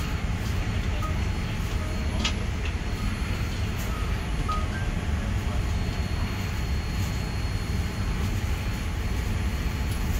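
Steady low rumble of airliner cabin noise aboard a Boeing 787-9, with a faint click about two seconds in.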